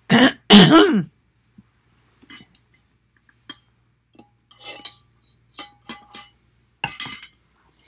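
A woman's voice briefly at the start, then faint scattered clicks, clinks and sips as she lifts a lidded drinking tumbler, drinks from it and sets it back.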